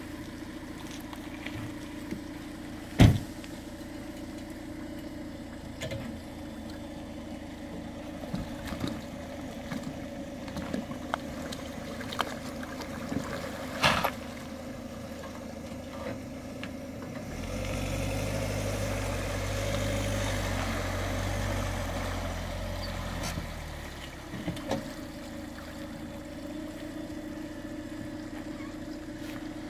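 Engine idling steadily, with two sharp knocks, one a few seconds in and one near the middle. Past the middle a deeper, louder engine rumble lasts about six seconds, then it settles back to the steady idle.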